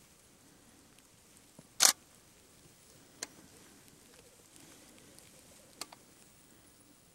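Faint low bubbling of displaying male black grouse rookooing on the lek. A few sharp clicks cut across it, the loudest about two seconds in.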